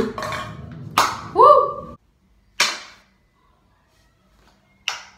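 Sharp clicks of a ping-pong ball bouncing off a tile floor and plastic containers, four hits spread out, each ringing briefly. A short rising tone about a second and a half in is the loudest sound.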